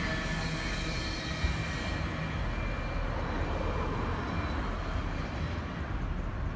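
Rear cars of a long double-stack intermodal freight train rolling away on the rails: a thin wheel squeal fades out about two seconds in, with a brief knock just before, and a steady low rumble of the wheels carries on.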